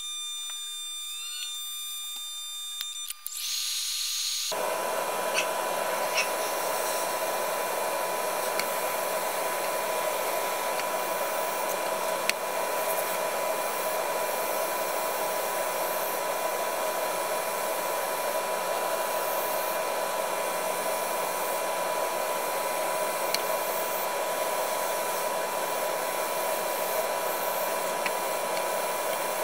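Airbrush and its compressor running steadily, a loud hiss of air and paint over a fixed hum, starting suddenly about four seconds in after a few seconds of faint steady high tones.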